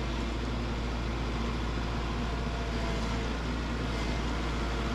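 Tractor engine running steadily at a constant speed, a low drone with no change in pitch or level.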